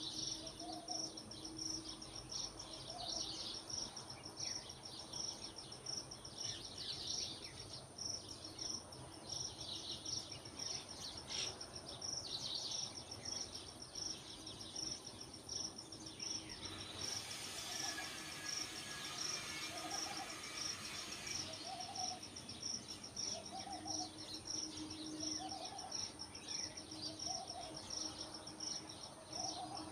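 Outdoor dawn ambience of insects and birds. A steady high insect trill with an even pulse runs under scattered bird chirps, and in the second half a low call rises and falls about every two seconds. A few seconds of hiss pass just after the middle.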